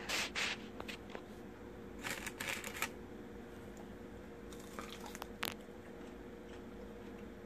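Someone biting into and chewing a crispy air-fried chicken wing: short crunchy bursts in three bouts, over a faint steady hum.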